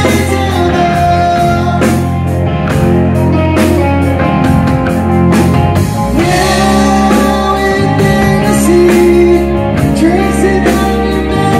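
Rock band playing live: electric guitars, bass guitar and drums, with a lead vocal sung over the top.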